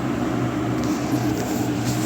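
A steady low mechanical hum with a constant pitch, with a few faint light ticks about a second in and near the end.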